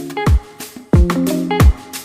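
Background music with a steady beat: deep kick-drum thumps about one and a half a second under plucked, guitar-like notes.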